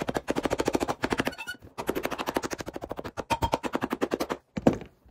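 Cobbler's hammer tapping rapidly on a new sole, beating it down onto a boot's welt. Two long runs of quick blows with a short break between, then a couple of last blows near the end.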